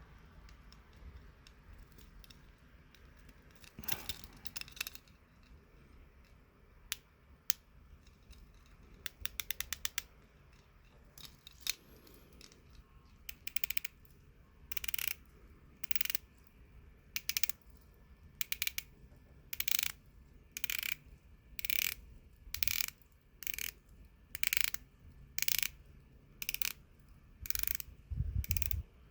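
Ratcheting clicks of an Orient Mako II dive watch being worked by hand: scattered clicks and a quick run of clicks at first, then short bursts of rapid clicking about once a second through the second half, with a low thump near the end.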